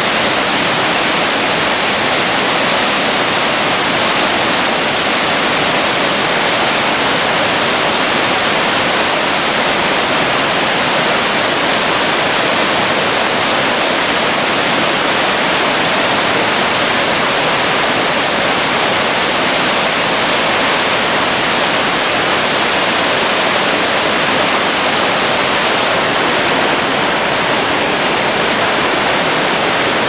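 Waterfall on the Yellowstone River plunging over its rock lip: a loud, steady, unchanging rush of falling water.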